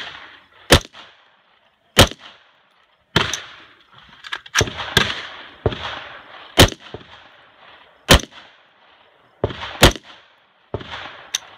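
AR-15-style semi-automatic rifle firing about ten single shots at an uneven pace, mostly a second or more apart, each shot followed by a fading echo.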